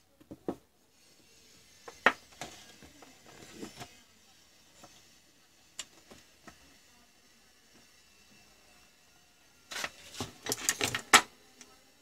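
Small parts and tools being handled on a workbench: scattered clicks and taps, then a quick run of sharp clicks and rattles about ten seconds in, the loudest of them.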